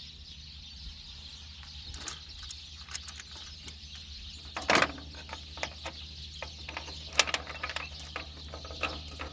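Irregular metallic clicks and clinks of a socket wrench and extension working the spark plugs out of a Toyota Land Cruiser's inline-six engine, which is not running. There is a sharper knock about five seconds in and a quick run of clicks near seven seconds, over a steady low hum.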